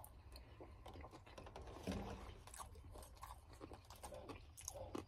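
Faint chewing of sushi, with light clicks of wooden chopsticks and a plastic takeout container, and a brief low hum about two seconds in.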